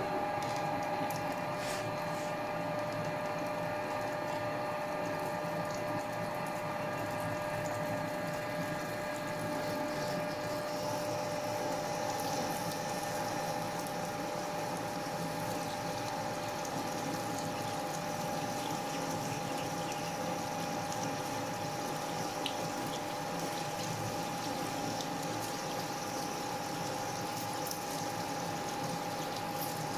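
Ward 3A capstan lathe running steadily while a turret-held twist drill bores a deep hole in a bush under flood coolant, the coolant pouring and splashing over the drill and work. The machine gives a steady tone under the splash of the coolant.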